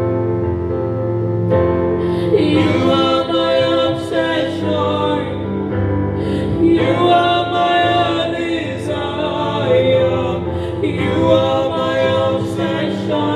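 Worship music with sung vocal phrases over a steady low sustained backing, the phrases breaking briefly twice.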